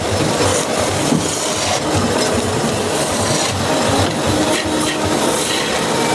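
A hand tool rubbing and scraping against wood in repeated strokes, as in rasping, sanding or hand-sawing a wooden stool part.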